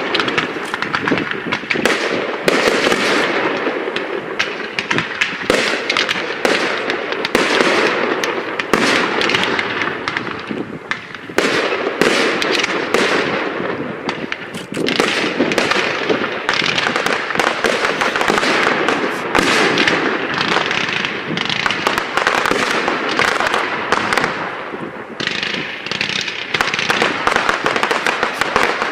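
Professional fireworks display going off in a dense, unbroken barrage: rapid sharp bangs of bursting shells overlapping with crackling, with no pause throughout.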